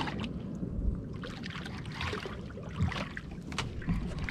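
Sea water lapping and sloshing against the hull of a small outrigger boat, a steady low wash with scattered light knocks and clicks.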